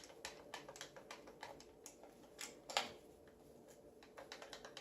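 Loose upper receiver of a stock AR-15 rattling against the lower as it is wiggled by hand: a fast run of light clicks with one louder knock a little past halfway. The clicking is the play between the two receivers.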